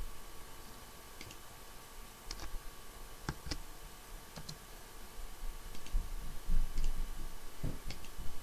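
Scattered single clicks of a computer keyboard and mouse, about a dozen in all, some in quick pairs, over a faint low hum.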